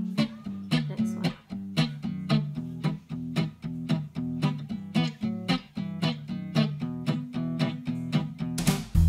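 Background music: a guitar picking plucked notes in a steady, repeating pattern. Near the end, a louder section with a heavy bass line comes in.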